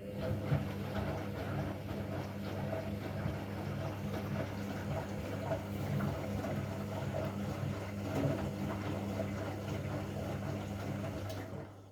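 Candy washing machine running with a steady low hum and rough rattly noise over it, cutting off near the end.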